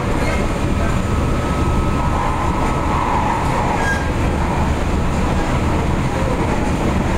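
MTR Tung Chung Line K-train, a Kawasaki-built electric train, running, heard from inside the car: a steady low rumble of wheels on rail with a faint thin whine. A brief higher, hissing rise comes about three seconds in.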